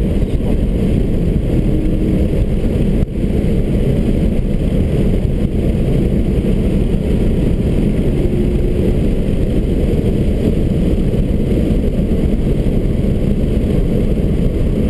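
Subaru BRZ heard from inside the cabin while lapping a race track at speed: its flat-four engine together with road and wind noise make a steady low rumble, with a brief dip in loudness about three seconds in.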